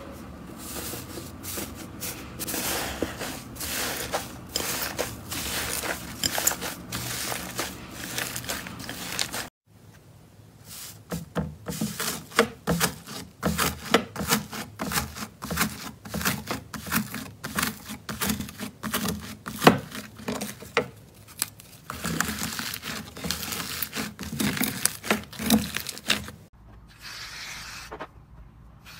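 Hands pressing and squishing slime: a dense, uneven stream of crackles, pops and squishes. It cuts off abruptly about ten seconds in and starts again as fingers dig into a textured slime, then turns quieter and softer near the end.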